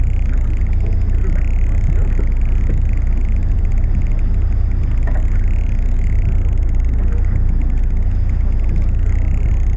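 Steady low rumble of a fishing boat's engine running.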